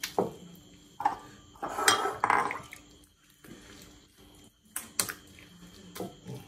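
Bowls knocking and clinking on a kitchen counter while soft fufu is handled and served by hand from a clay bowl into small ceramic bowls. There are a few sharp knocks, and the loudest, busiest handling comes about two seconds in.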